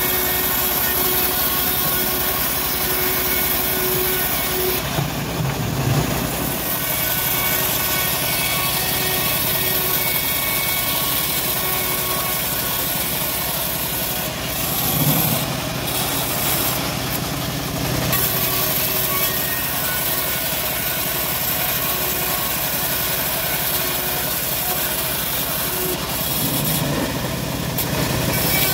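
Homemade band sawmill running steadily, its band blade ripping a teak board lengthwise, with brief swells in the sound about five, fifteen and twenty-seven seconds in.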